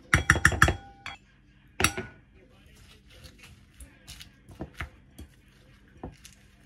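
A spoon knocking against a ceramic bowl: a quick run of five or six clinks, then one more about a second later. After that, softer clicks and rustling as the spoon tosses lettuce and tuna in the bowl.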